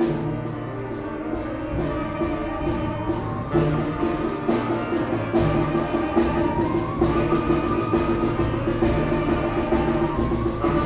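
Concert band playing, with snare drum strokes keeping a steady rhythm over sustained brass chords and tuba. A band line rises in pitch through the second half.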